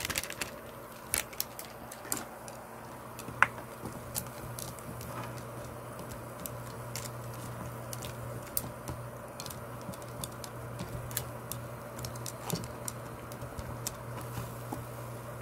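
Wooden chopsticks nudging pieces of dry instant ramen around a small nonstick pot: sparse light clicks and taps, one sharper tap about three and a half seconds in, over a low steady hum.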